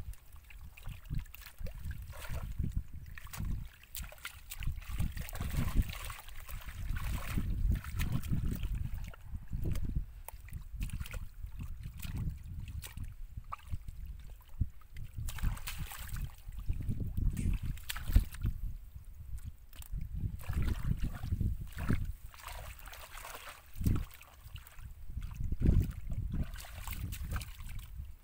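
Hands squelching and sloshing through wet mud and shallow water, in irregular bursts, over a steady low rumble of wind on the microphone.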